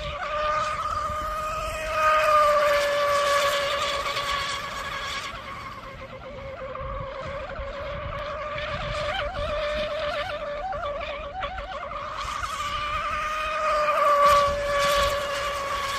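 Electric RC rigger race boat on a 4516 propeller running flat out, a steady high motor-and-prop whine that wavers slightly in pitch. It swells louder as the boat passes close, about two seconds in and again near the end.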